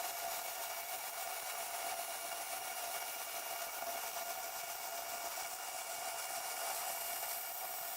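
Electric arc welder laying a continuous bead on steel plate, a steady sizzling hiss of the arc.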